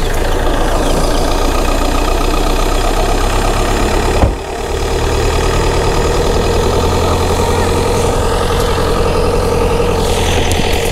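Motorcycle engine running steadily, with a single sharp knock about four seconds in.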